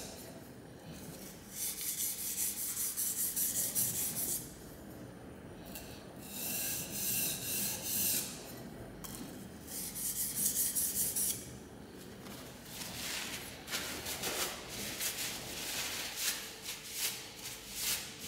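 Steel plane iron being rubbed back and forth on an oiled silicon carbide (Norton Crystolon) combination sharpening stone: a gritty scraping hiss in bouts of quick strokes, broken by short pauses.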